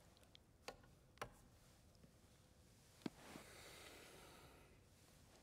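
Near silence with room tone, broken by three faint clicks in the first three seconds and then a soft breath lasting about a second and a half.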